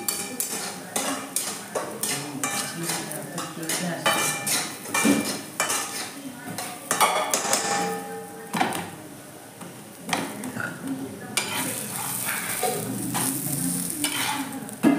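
Metal ladle stirring and scraping in a steel kadai, with repeated short clinks against the pan's rim. Food sizzles in the hot pan, most clearly in the last few seconds.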